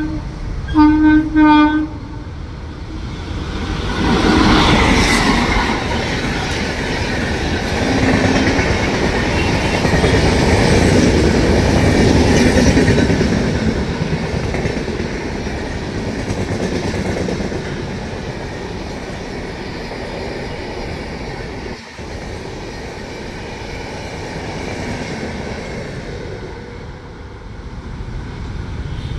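Indian Railways express train: a locomotive horn blast about a second in, then the train running through the station at speed. The locomotive passes about four seconds in, followed by a long run of coaches with steady wheel-on-rail noise that slowly fades as the train draws away.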